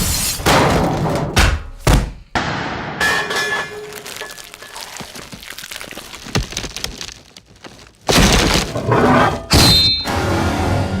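A montage of heavy designed impact sound effects: a series of loud hits and crashes, with a stretch of breaking debris after about three seconds and a big slam near eight seconds, one later hit ringing briefly like struck metal.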